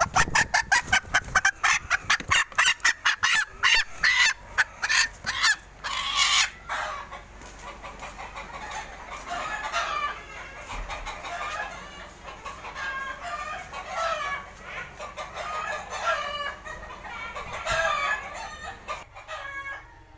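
Bantam chicken squawking in rapid, loud distress calls as it is grabbed and held by hand, then settling into softer, broken clucking for the rest of the time.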